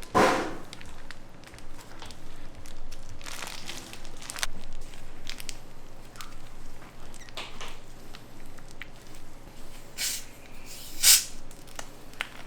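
Irregular kitchen handling sounds from food preparation: a sharp knock at the start, scattered taps and brief rustling swishes, and a loud clack about eleven seconds in.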